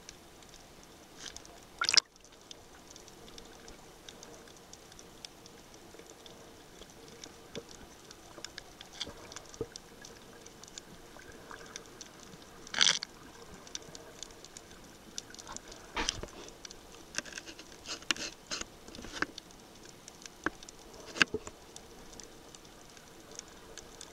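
Underwater sound picked up by a submerged camera: a faint steady hiss with scattered clicks and crackles, the loudest about two seconds in and near the middle.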